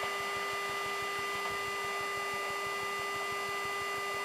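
Steady cabin background of a Boeing 737-800 at the gate: an even airflow hiss with a constant hum and higher whines over it.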